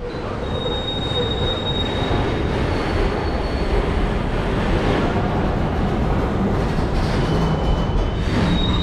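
A freight train of car-carrier wagons rolling past: a steady rumble of wheels on rail, with thin high wheel squeals on and off, about a second in and again near the end.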